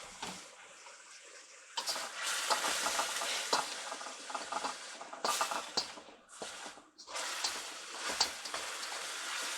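Onions with soy sauce and sugar sizzling in a hot wok, stirred with a spatula that clicks and scrapes against the pan. The sizzle grows louder about two seconds in and drops away briefly near the seven-second mark.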